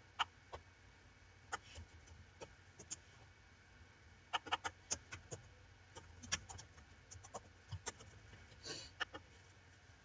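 Faint, scattered clicks of a computer keyboard and mouse, a few strokes at a time with pauses between, including a quick run of keystrokes about four to five seconds in.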